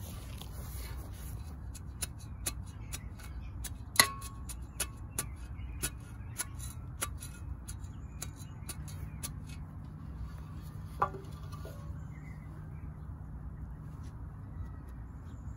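A long-handled metal garden tool chopping into dry soil and grass roots: a run of sharp strikes and scrapes, with a loud ringing metal clink about four seconds in and another a little after eleven seconds. A steady low rumble lies underneath.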